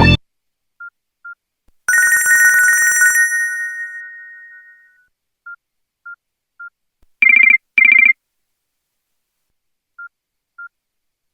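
Nokia N95 telephone-style ringtone: short high beeps, then a trilling bell ring that fades out, more beeps, and a quick double ring about seven seconds in, followed by a few last beeps.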